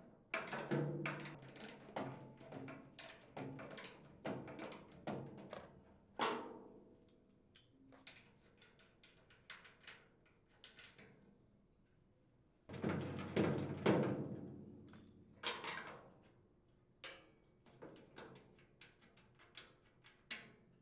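Hand tools working nuts off bolts on a chipper shredder's sheet-steel hopper support plate: a wrench and socket ratchet make scattered metallic clicks, clinks and knocks. A louder clatter comes about two-thirds through.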